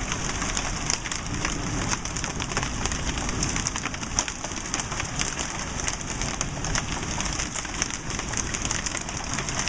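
Hailstorm of large, golf-ball-sized hail pelting down: a dense, irregular patter of hard impacts over a steady rain-like hiss.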